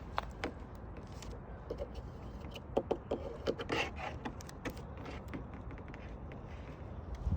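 A series of light, irregular taps and clicks on hard objects, thickest around the middle, over a steady low outdoor rumble.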